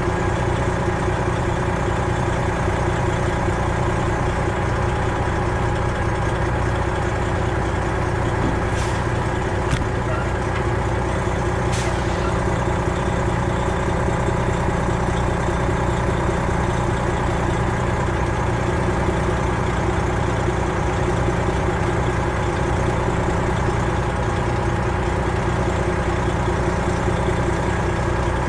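Semi truck's Detroit Diesel 12.7-litre engine running steadily at an even pitch. A few faint clicks about nine to twelve seconds in.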